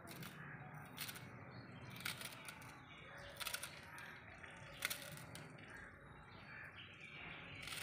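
A kitchen knife cutting a bunch of fresh coriander held in the hand, giving faint, irregular crisp snicks as the blade goes through the stems.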